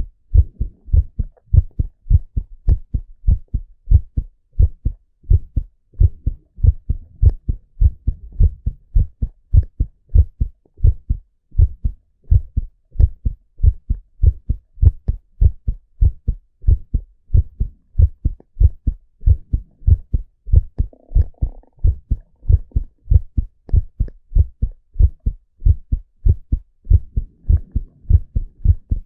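A man's heartbeat heard through a stethoscope: steady, regular lub-dub pairs of low beats.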